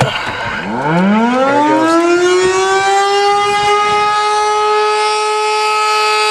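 Pole-mounted outdoor tornado warning siren starting up: its pitch rises from low over the first few seconds, then holds a steady loud wail, sounding a tornado warning.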